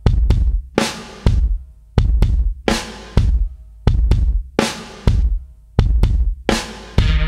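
Background music: a drum intro of heavy bass drum and snare hits in a steady, repeating beat. Near the end a sustained bass note comes in under the drums.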